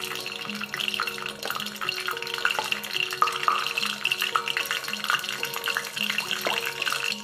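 Mustard seeds spluttering in hot oil in a small steel pan, an irregular scatter of small pops and crackles: the tempering (tadka) as the seeds burst open, the cue that the oil is ready for the next spices. Background music with steady held notes plays under it.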